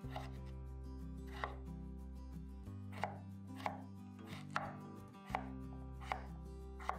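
Background music with held chords that change every two to three seconds, with sharp knocks at uneven intervals, about one a second.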